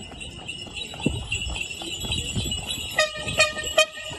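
Bells jingling steadily, with hoof clops underneath, as a horse-drawn carriage passes. About three seconds in, a pitched horn gives four quick toots.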